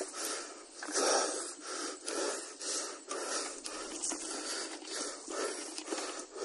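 A person panting hard in quick rhythmic breaths, about two a second, with the motorcycle engine no longer running.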